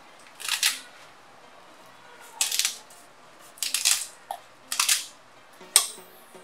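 Fresh leafy herbs rustling and crackling in a few short bursts as they are handled and stuffed into a glass blender jar, ending in a sharp click of a utensil against the jar.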